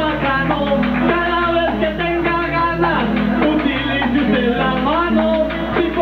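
Live band music in Colombian trova style, guitars and keyboard playing a steady Latin accompaniment with a melodic line over it.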